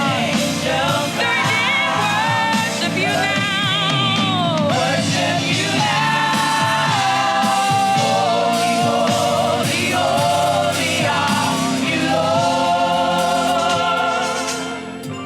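Live gospel praise and worship music: a lead voice singing long notes with vibrato, with backing voices over a band accompaniment.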